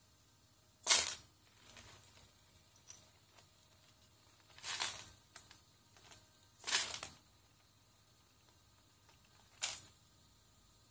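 Loose plastic Lego bricks clattering and shifting as the legs of a servo-driven walking robot push through the pile, in four short, sharp rattles a few seconds apart, the first the loudest.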